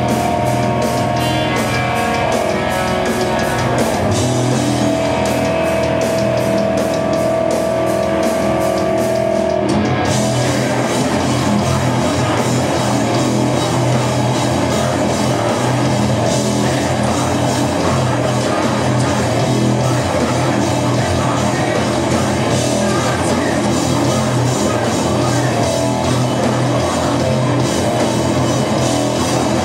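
Live rock band playing loud with distorted electric guitar and drum kit. A long held guitar note rings over the playing for about the first ten seconds, then the whole band comes in harder with crashing cymbals and keeps going.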